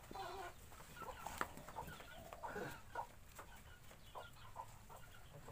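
Faint short bird calls in the background, with light clicks and rattles of a bundle of plastic-tubed nylon nooses being handled.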